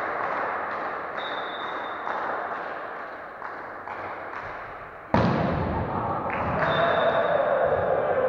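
Volleyball thuds and bounces echoing in a large sports hall during a rally, then a sudden loud thump about five seconds in, after which the hall stays loud with echoing voices.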